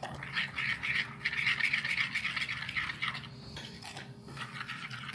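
A metal fork whisking a thin liquid glaze in a glass bowl, the tines scraping and rattling quickly against the glass, with two brief pauses about three and four seconds in.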